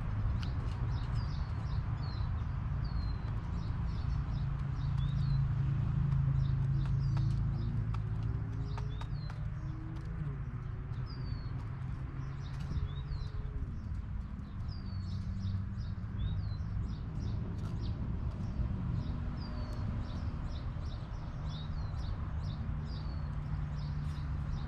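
Chickens vocalising low and softly, with small wild birds chirping over and over in short falling notes and a steady low rumble underneath.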